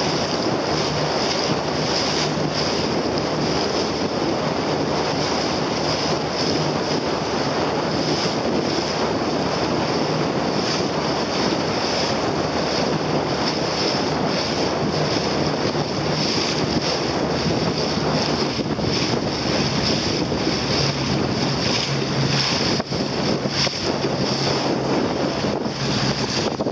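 Wind buffeting the microphone over choppy sea water rushing past a boat's hull, with a steady low hum underneath.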